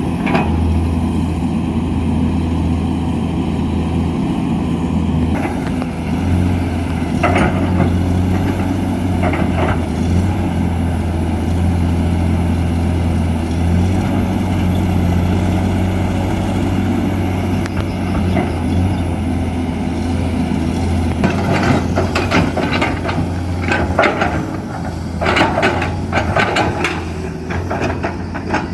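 Heavy diesel machinery running steadily at a low, even drone while soil is loaded into a dump truck. Clunks and clatter come in brief clusters, a few near the start and a longer run near the end.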